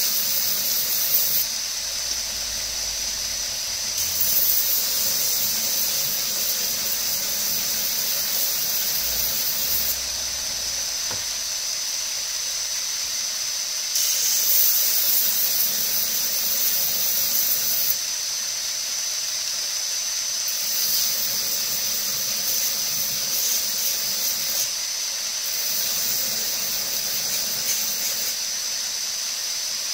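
Belt grinder grinding G10 knife scales against the belt over its contact wheel: a steady high hiss with a thin whine. The grinding noise strengthens and eases every few seconds as the work is pressed on and lifted off.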